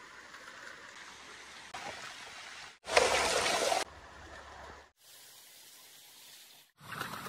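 Muddy water and river sand pouring and trickling over a small sluice tray in a stream, heard in short clips that start and stop abruptly. The loudest, a close splashing pour, comes about three seconds in.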